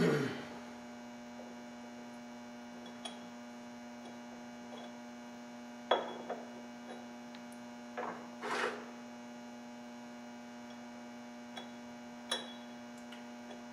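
A steady electrical hum, broken by a few short knocks and clinks as parts and a socket are handled at a bench arbor press to set a wheel-bearing race; the sharpest knocks come at the start, about six seconds in and around eight seconds.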